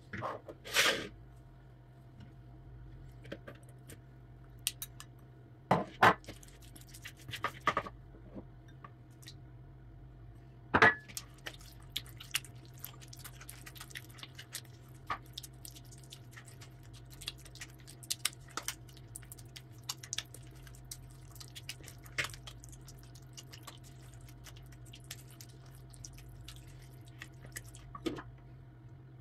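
Silicone spatula stirring quark and raw eggs in a plastic mixing bowl: soft, wet scraping and squishing with many small clicks. A few sharp knocks of dishes against each other in the first ten seconds and one more near the end, over a low steady hum.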